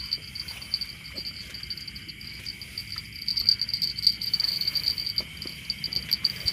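Night insect chorus: crickets chirping in a fast, steady pulsing trill over a second steady insect drone, with a few faint knocks of handling.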